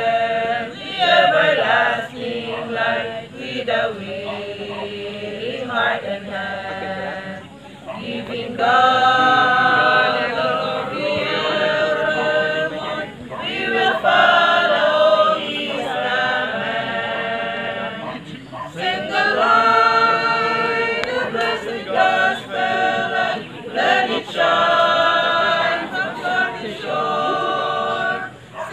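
A small choir of men and women singing together unaccompanied from song sheets. The singing comes in long phrases with short breaks between them.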